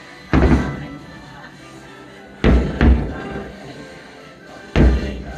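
Fireworks shells bursting with deep booms, four in all: one about a second in, a close pair around the middle, and one near the end, over the fireworks show music.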